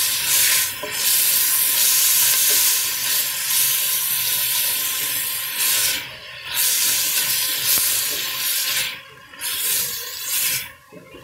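Diced pumpkin, onion and carrot sizzling in hot oil in a pot while being stirred with a spatula. The sizzle drops away briefly about six seconds in and twice near the end.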